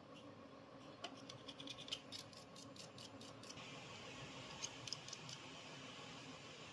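Faint workshop sounds: a quick run of light clicks, then a steady soft hiss with a few more clicks partway through.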